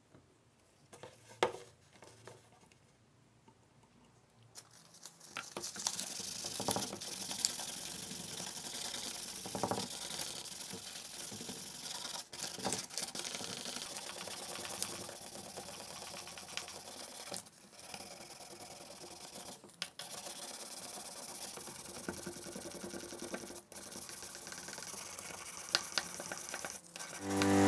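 Sandpaper rubbed by hand over the plastic housing of a cordless drill: a steady, scratchy rasp that starts about five seconds in and stops briefly a few times. Before that, a few faint taps.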